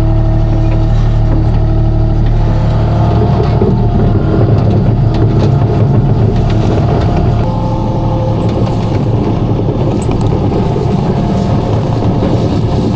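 Skid steer engine running steadily under load, with scattered clanks and knocks from the machine at work.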